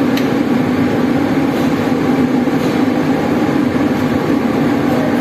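Steady, loud mechanical drone with a continuous low hum, unchanging throughout.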